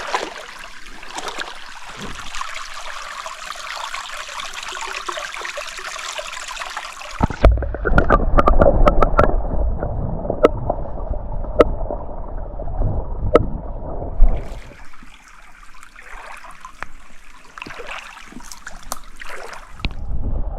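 Small mountain stream flowing and trickling over rocks. About seven seconds in, a loud low rumble with sharp knocks takes over, and it changes back to the stream sound about halfway through.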